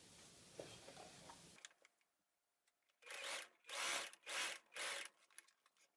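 Sewing machine stitching fabric in four short runs of rapid stitching noise, starting about three seconds in and lasting about two seconds.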